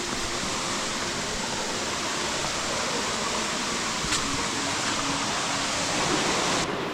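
Waterfall falling and splashing close by, a steady rushing noise, with a single faint click about four seconds in.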